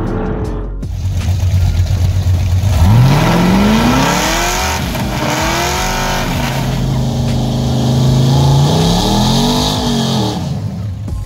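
Drag race car engine accelerating hard: the revs climb steeply, drop at a gear change about five seconds in and climb again, hold steady for a couple of seconds, then rise and fall once more near the end.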